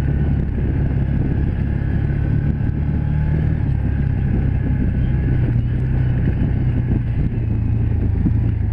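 Can-Am Commander 1000 side-by-side's V-twin engine running steadily as the machine drives along a dirt trail, heard from the driver's seat.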